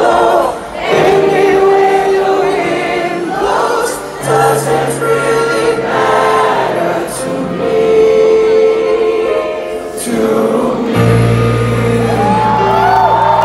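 Live concert music recorded from within the crowd: a singer and band with piano, and the audience singing along. A heavy bass comes in about three-quarters of the way through.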